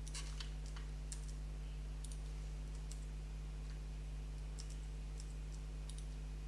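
Scattered computer mouse and keyboard clicks at irregular intervals, over a low steady electrical hum.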